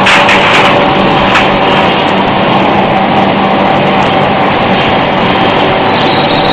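Induction pipe-annealing line running: a loud, steady machine drone with hum tones, as a pipe passes glowing through the induction coil. There is a brief hiss at the start and a short click about a second and a half in.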